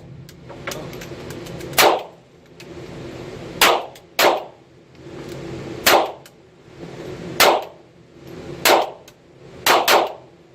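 Firearm shots, about eight single shots fired one at a time, one to two seconds apart, with the last two in quick succession.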